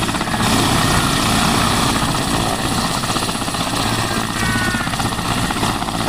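Mil Mi-8-family transport helicopter running on the ground with its twin turboshaft engines and rotors turning: a steady, loud engine noise with a rapid rotor beat.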